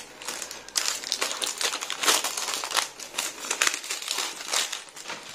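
Clear plastic packaging crinkling in the hands as it is pulled off a small cardboard box, a run of quick rustles that fades near the end.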